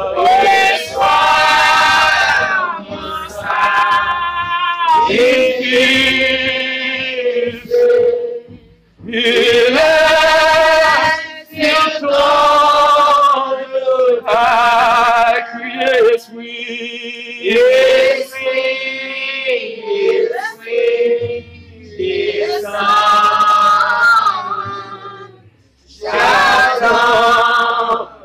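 Men's and women's voices singing a worship song together, in held phrases a few seconds long with short breaks between them.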